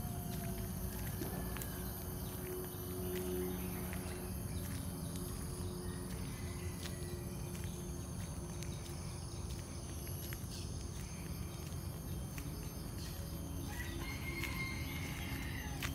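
Tropical forest ambience: a steady high drone of insects over a low rumble, with faint footsteps on an asphalt lane and a short bird call near the end.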